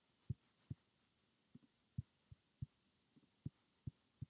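Faint, short, low thuds, about a dozen at uneven intervals of roughly half a second, some in close pairs, over near silence.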